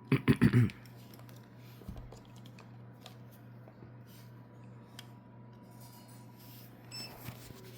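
A short voiced sound at the very start, then faint scattered clicks and taps of hands handling a small plastic toy car, over a steady low hum; a few more clicks come near the end.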